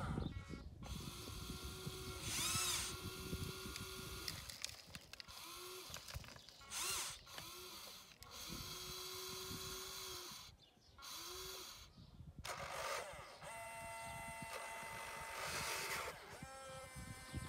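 Electric motors and gearboxes of a radio-controlled model excavator whining in stop-start runs: one of about three and a half seconds near the start, then many short spurts of under a second. Higher wavering pitched sounds come and go over them and are loudest about two and a half and seven seconds in.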